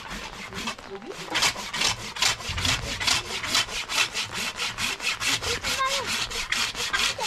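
Fast rhythmic scraping strokes, about four or five a second, like a blade or grater worked back and forth.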